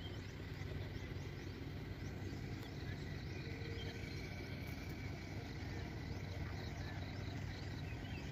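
Faint field ambience: many short, high, falling chirps from small creatures, repeated through, over a low steady hum.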